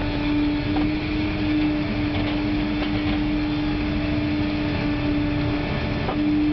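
Heavy log-handling machinery running, heard from inside the operator's cab: a steady mechanical drone with a constant hum and a few faint clicks.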